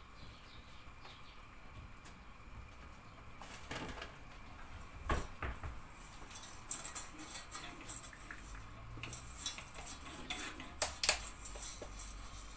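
A metal spoon scraping and clinking against a stainless-steel pot as dry sugar is stirred in it. Scattered sharp knocks and scrapes start a few seconds in, the loudest near the middle and near the end.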